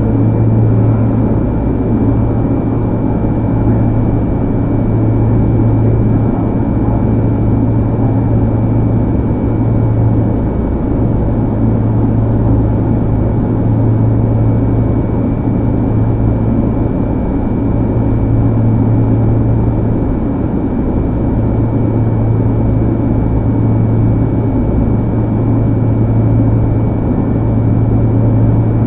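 Sotetsu 8000 series electric train running at a steady speed, heard from inside the car: a loud, steady rumble of wheels on rail over a strong low hum, with a thin high tone that holds its pitch.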